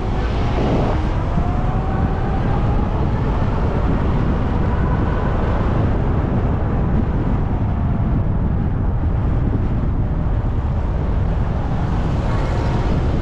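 Steady low rumble of road traffic. A faint engine tone rises slowly in pitch during the first few seconds.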